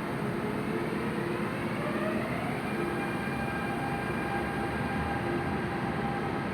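CAF electric multiple unit train pulling out of a station. The traction motors give a whine that rises in pitch for about two seconds as the train accelerates and then holds steady, over a steady running rumble.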